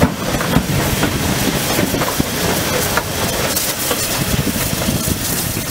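Small steam tank locomotive passing close by: a steady hiss with scattered clanks and knocks from the wheels and running gear.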